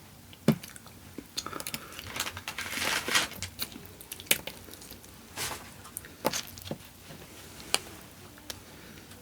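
Close-miked eating of a lemon pepper chicken wing: biting and chewing with wet mouth sounds, crunches and a few sharp clicks.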